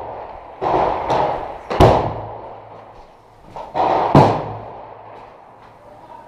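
Gunfire in urban combat: several sharp shots, each with a long echoing tail. The loudest come about two seconds in and again just after four seconds.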